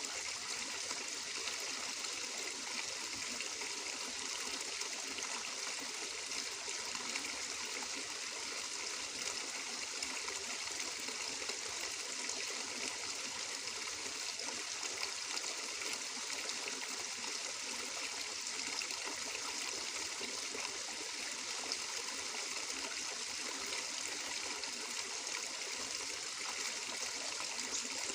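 Water flowing steadily in a small stream, an even, bright rush with no breaks or changes.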